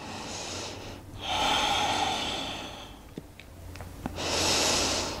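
A woman breathing slowly and audibly close to the microphone: two long breaths, one starting about a second in and one about four seconds in, with a few faint small clicks between them. Slow breathing held through a yoga side stretch.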